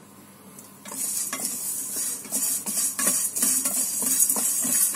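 Spatula scraping and stirring coriander seeds and black peppercorns around a dry stainless steel pan, the seeds rattling and hissing against the metal as they roast without oil. It starts about a second in, after a brief lull, and goes on as quick repeated strokes.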